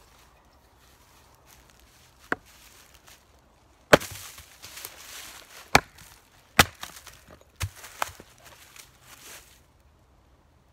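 Hatchet chopping into wood: a light tap, then four hard strikes about a second apart, the first the loudest, with rustling between them.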